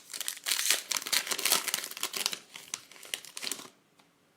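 Foil trading-card pack wrapper being torn open and crinkled, a dense crackling that stops about three and a half seconds in.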